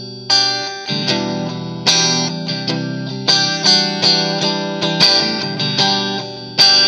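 Fender Stratocaster's single-coil pickups played through the clean channel of an Audio Baron TG-30 30-watt guitar amplifier, close-miked: a run of picked chords and single notes, struck a few times a second.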